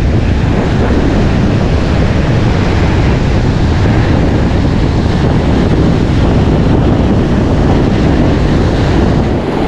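Ocean surf breaking and washing up the sand, with wind buffeting the microphone. The sound holds a steady, loud rush throughout.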